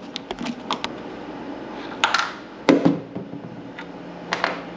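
Hand tool work on refrigerator hinge screws with a T20 Torx bit on a 1/4-inch drive: a quick run of light metal clicks, then a few louder knocks and clatters as the screws come out.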